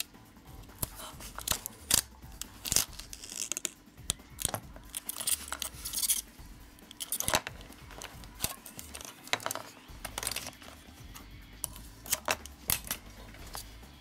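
Adhesive tape being pulled off the roll, cut and pressed down onto a circuit board: irregular short rasps and crackles with sharp clicks.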